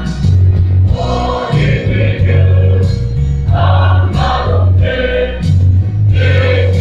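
Large mixed choir of men and women singing a gospel song in Thadou-Kuki, over a deep bass line that steps from note to note.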